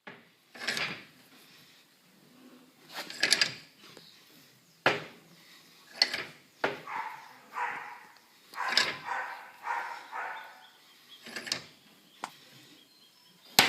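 Steel bench vise being wound closed in repeated strokes of its handle, pressing a universal joint's bearing cups into the tail shaft yoke. There are about a dozen separate scraping turns, several with sharp metal clicks.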